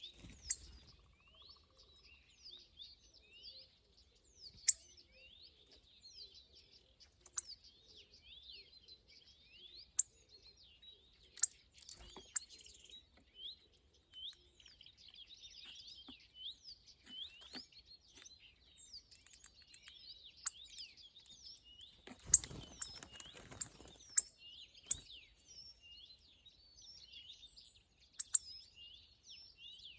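Small birds chirping and twittering constantly in quick short notes, with sharp clicks or taps now and then and a short rustle near the end.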